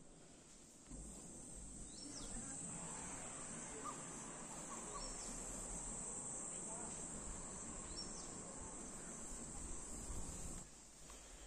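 Crickets chirring in one steady high-pitched trill that comes in about a second in and stops shortly before the end, with a few short, higher chirps over it and a faint low rumble.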